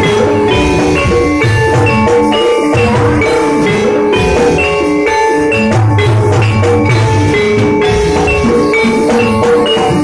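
Javanese gamelan music accompanying a jathilan dance: metal-keyed mallet instruments playing quick, repeated notes over a steady drum pattern.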